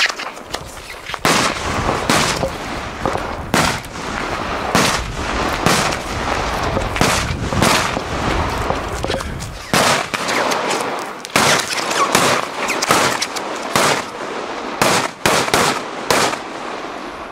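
A batteria napoletana, a long chain of firecrackers laid along the ground, going off in a rapid run of crackling with louder bangs about once a second. After about ten seconds the crackle thins, and it fades near the end.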